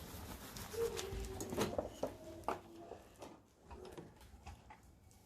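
Faint clicks and knocks of hand tools and metal suspension parts during reassembly, with a few short tonal squeaks among them.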